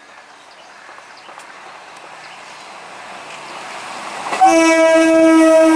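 Indian Railways EMU local train approaching, its running noise on the rails growing steadily louder, then sounding its horn: a loud, steady blast that starts about four and a half seconds in.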